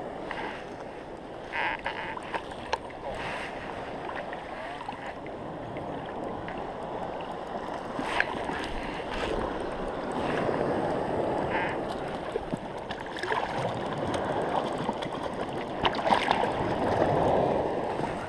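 Sea water lapping and sloshing around a wading angler, swelling now and then, with scattered short clicks and small splashes.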